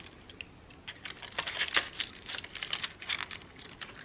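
Crepe paper being handled and pressed between the fingers: irregular small crinkles and clicks, busiest a little over a second in and again around three seconds in.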